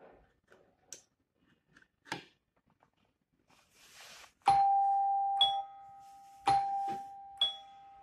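Electronic doorbell chime of a hotel-room doorplate system, set off by its touch doorbell key, playing a two-note ding-dong twice, about four and a half seconds in and again two seconds later, each note ringing on and fading. A few faint clicks come before the first chime.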